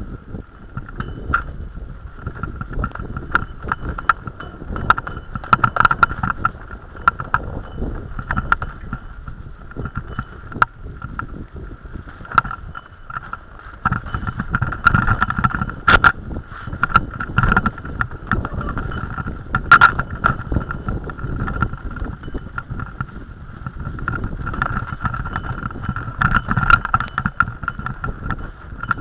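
Mountain bike descending a rough dirt forest trail, heard from the rider's own bike: constant rattling and knocking of the bike over roots and bumps above a low rumble, with a steady high hum.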